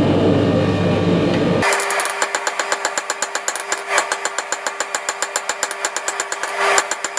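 A dense steady roar, then, about two seconds in, a mechanical power hammer starts a fast even run of blows on hot steel, about four to five a second, over a steady motor hum.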